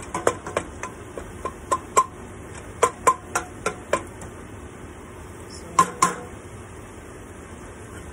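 Wooden spoon knocking and scraping against a stainless steel pot while stirring diced onion and tomato: irregular ringing clinks for about four seconds, then two sharper knocks a little before six seconds in.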